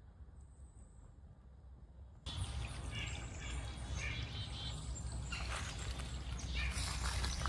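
Woodland trail sounds: quiet for about two seconds with a faint high bird note, then an abrupt jump to a steady low rumble and hiss with footsteps crunching on leaf litter and birds chirping.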